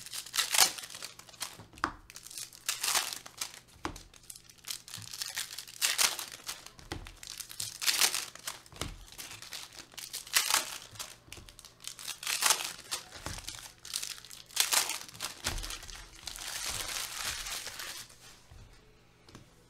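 Foil wrappers of football trading card packs crinkling and tearing as the packs are ripped open and the cards pulled out, in short bursts every second or two, with a longer crinkle near the end.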